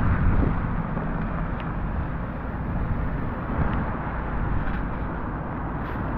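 Car tyres hissing on a rain-wet road as traffic passes, with wind rumbling on the microphone. The hiss is loudest at the start.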